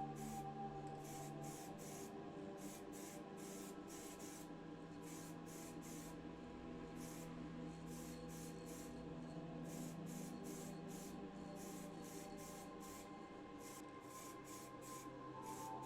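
Soft background music: sustained chords that change a couple of times, with a light, steady hissing tick of percussion over them.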